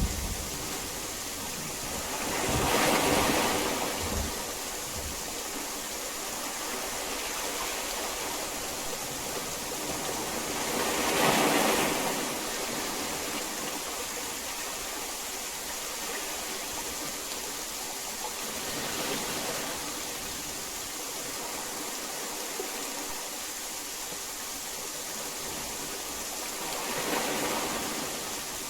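Steady heavy rain, an even hiss that swells and fades again about every eight seconds.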